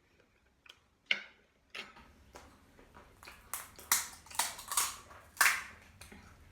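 Crisp food being bitten and chewed close to the microphone: a run of sharp crunches that starts about a second in and comes thickest in the middle.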